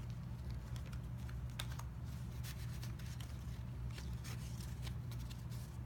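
Light clicks and taps of trading cards and packaging being handled, scattered and irregular, over a steady low hum.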